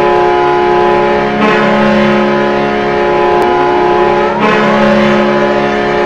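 The Rochester Americans' ice hockey goal horn blowing one long, steady, chord-like blast. It restarts about a second and a half in and again about four and a half seconds in, with a rising glide in pitch just before the second restart.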